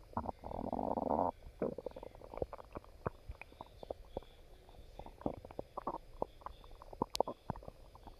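A person's stomach growling: a longer gurgling growl about half a second in, lasting about a second, followed by a run of short gurgles and clicks.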